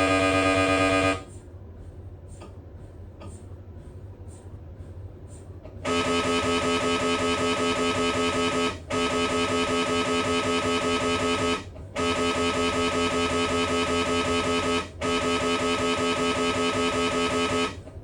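Siemens Magnetom Spectra MRI scanner's gradient coils sounding through scan sequences. A loud steady tone stops about a second in. A few seconds of low hum with faint ticks about twice a second follow. Then a loud buzzing tone starts, broken by short gaps about every three seconds.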